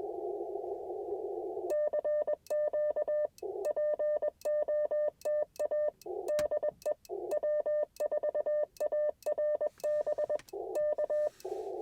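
Morse code from an Icom IC-705's sidetone: a steady tone near 600 Hz keyed on and off in dits and dahs from a paddle, the operator calling CQ. Before and after the sending, and in its longer gaps, a narrow band of receiver hiss is heard, muted while the tone sounds.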